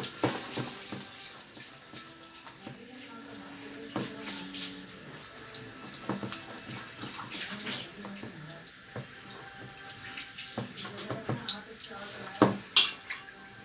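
Insect chirping in a steady high-pitched pulsing trill, with scattered clicks and two louder knocks near the end.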